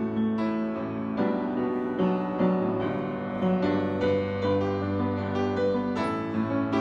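Piano playing a slow hymn tune, with sustained chords and notes struck in a gentle, unhurried rhythm.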